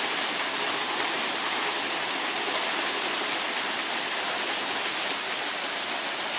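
Waterfall pouring: a steady, unchanging rush of falling water.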